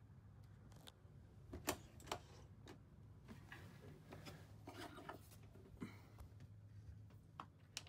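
Faint clicks and light rattles of hands working at a boat's helm, a set of keys being picked up among them, over a low steady hum. Two clearer clicks come about two seconds in, and a short run of jingling follows around the middle.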